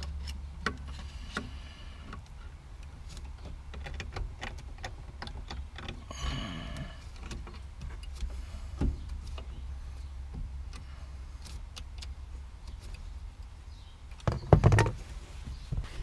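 Scattered small clicks and scrapes of metal parts as a brake light switch is worked onto the brake pedal arm under the dash, over a steady low rumble. A few heavier knocks come near the end.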